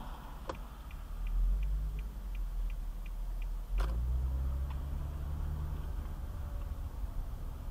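Car's turn-signal indicator ticking about three times a second inside the cabin while the car pulls out and turns, over low engine and road rumble. A sharp knock comes just under four seconds in, after which the rumble grows louder as the car moves off.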